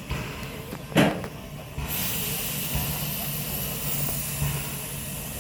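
Steam locomotive standing at the platform: a loud knock about a second in, then steam starts hissing suddenly about two seconds in and keeps on steadily.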